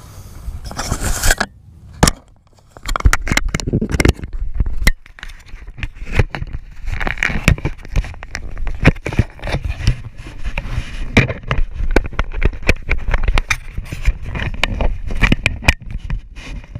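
Close-up handling noise from a GoPro held in the hand: fingers rubbing, scraping and tapping on the camera, making many sharp clicks and knocks over a low rumble.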